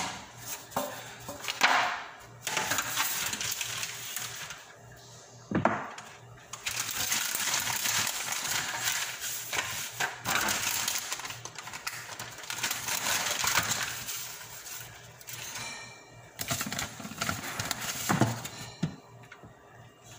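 Food-handling noises at a kitchen counter: rustling and scraping, with a few sharp clinks and knocks against a metal tray.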